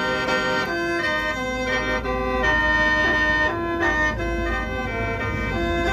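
Lao khaen, a bamboo free-reed mouth organ, being played: a melody of short notes over held drone notes, several pitches sounding together.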